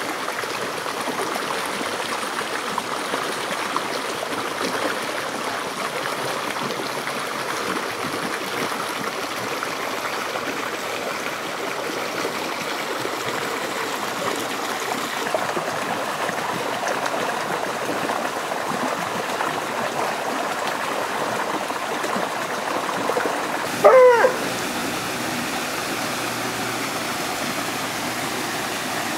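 Steady rush of water from a small waterfall spilling into a spring-fed mountain pool. About three-quarters of the way through comes one brief, wavering dog call, the loudest sound.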